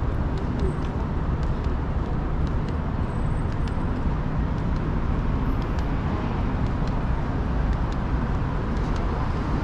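Downtown street traffic: a steady low rumble of passing cars with no break, and a scattering of faint clicks above it.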